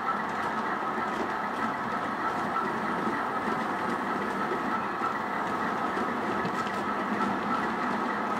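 Model train running on a layout: a steady mechanical running noise from the locomotive and its wheels on the track, with a faint, regular ticking.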